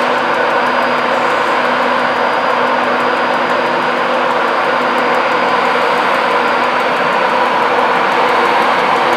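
Class 91 electric locomotive running at a standstill, a loud steady hum from its fans and electrical equipment. A faint high whine fades out about two-thirds of the way through.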